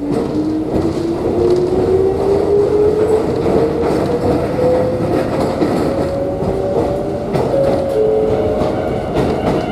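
Electric train's traction motors whining and rising steadily in pitch as the train accelerates, over the rumble and clatter of wheels on rail, heard from inside the car.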